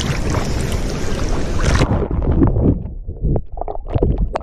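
River water rushing and splashing right at the microphone. About two seconds in the hiss cuts off and it turns to a muffled low rumble with scattered knocks and thumps, as of a camera being tumbled in and around the water.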